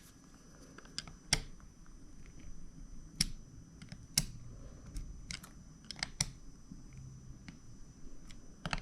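Irregular sharp clicks and taps, about one a second, from small plastic parts and tools being handled while a Snap-on work light is put back together.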